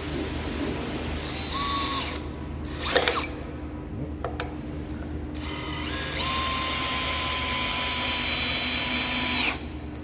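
DeWalt cordless drill driving a screw through a steel floor flange into pine boards. A short burst comes first, then a sharp knock, then a run of about three seconds whose whine sags slightly in pitch as the screw bites, before it stops abruptly near the end.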